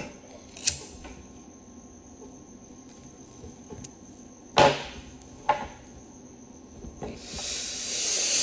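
A man smoking close to a phone's microphone: a faint click, then a loud sharp knock about four and a half seconds in and a smaller one a second later, and near the end a long breathy hiss of breath that grows louder and then stops.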